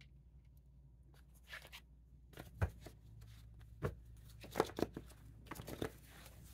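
Tarot and oracle cards being handled on a wooden table: faint, a handful of separate light taps and rustles, beginning a couple of seconds in, over a low steady hum.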